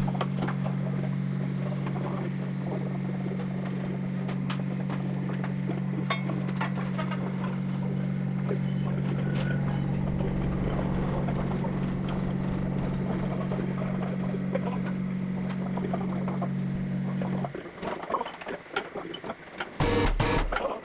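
A steady, low electric machine hum that cuts off abruptly about 17 seconds in, with scattered metallic clinks and knocks of heavy workshop work, and a louder burst of knocking near the end.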